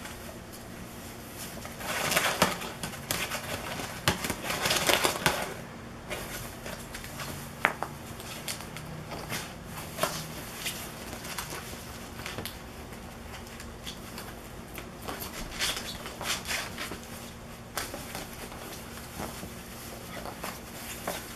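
Ferrets scrabbling in and over a nylon-fabric cat play tent, the fabric rustling and crinkling loudly about two seconds in and again around four to five seconds, then scattered taps and short rustles.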